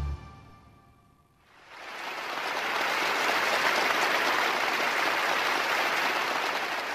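The last notes of the ensemble ring out and fade away, then an audience applauds steadily from about two seconds in.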